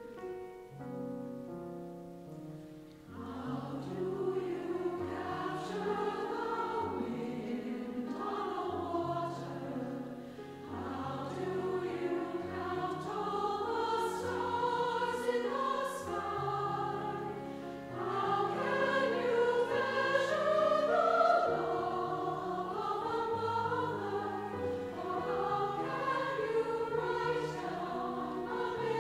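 A choir singing with piano accompaniment; after a few seconds of the accompaniment alone, the voices come in and the singing swells.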